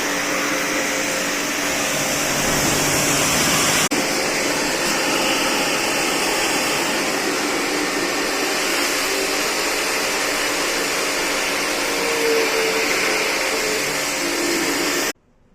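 AC-service jet pump (pressure washer) running, its motor and water spray making a steady, loud hiss that cuts off abruptly near the end.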